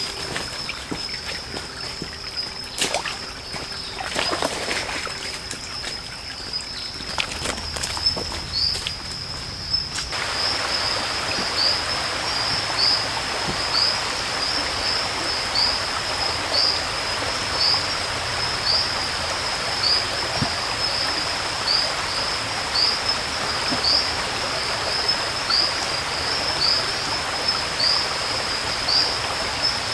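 Rainforest ambience with a steady high insect drone throughout. Footsteps and rustling on dry leaf litter fill the first part. About ten seconds in, the sound changes to a rushing stream with a short high chirp repeating about every two-thirds of a second.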